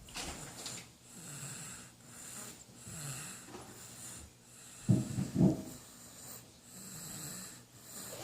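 A 4.5-month-old baby snoring in sleep, a soft snore on each breath. Two short, louder snorts come about five seconds in.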